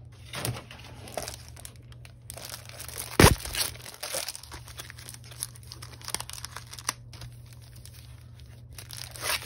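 Clear plastic cello sleeve crinkling and rustling as a pad of patterned paper is handled and pulled out of it. Irregular crackles run throughout, with one sharp, loud rustle about three seconds in.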